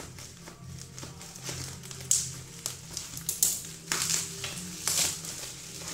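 Plastic bubble-wrap packaging crinkling and rustling in irregular bursts, with sharp snips and crackles, as it is cut with scissors and pulled open by hand.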